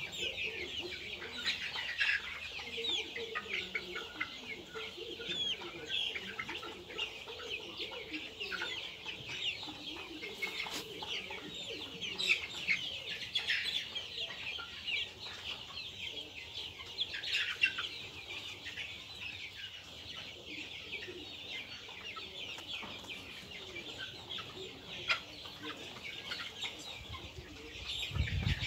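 A flock of two-month-old Giriraja and Gramapriya chickens peeping and clucking together, a constant chatter of many short overlapping calls, with a low rumble near the end.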